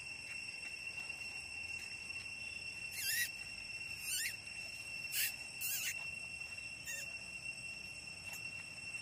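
A steady high-pitched insect drone. Over it come five short squeaky calls, each falling in pitch, spread from about three to seven seconds in: squeals of an infant macaque.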